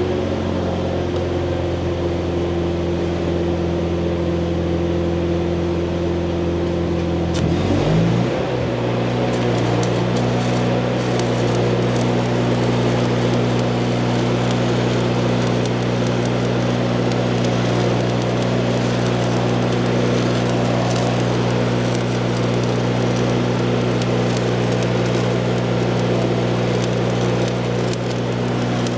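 Stick-welding arc crackling steadily as a rod burns, over the steady drone of a running welding machine engine. The engine drone shifts in pitch about eight seconds in.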